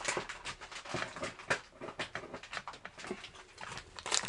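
Rustling, crinkling and clattering of plastic-packaged fishing lures as they are gathered up and handled: a quick, irregular run of small clicks and crackles.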